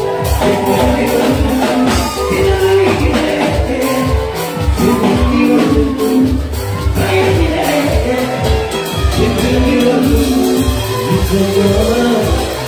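Live amplified music with a steady beat and a man singing into a microphone over it.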